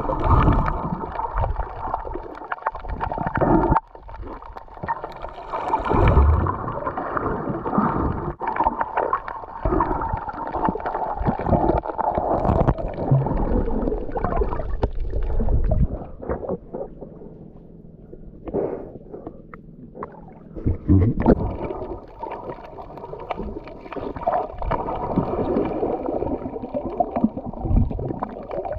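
Sound picked up by a camera held underwater: muffled, irregular water rushing and gurgling, growing quieter for a few seconds past the middle before picking up again.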